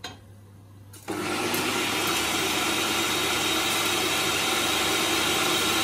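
Food processor running, blending onions, garlic, ginger and tinned tomatoes into a wet purée. The motor starts suddenly about a second in and then runs steadily and loudly.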